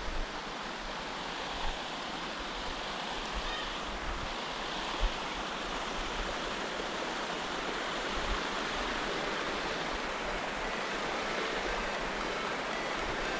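River water rushing steadily, with a few brief low bumps, the clearest about five seconds in.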